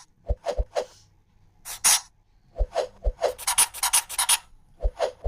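Woodworking on boards: scattered knocks and taps, a short scrape a little before two seconds in, and a quick run of rasping strokes from about three seconds in.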